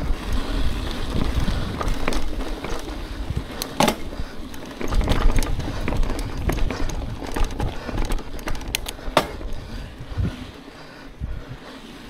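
Mountain bike rolling over a dirt trail: a rough low rumble from the tyres, with frequent sharp clicks and rattles from the bike over bumps. It eases off somewhat near the end.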